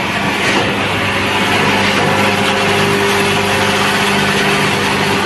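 Breakfast-cereal extrusion production line running, a steady loud machine drone with a constant low hum.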